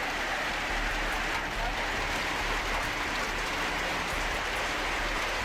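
Hailstorm: hail pelting down in a dense, steady clatter of many small impacts.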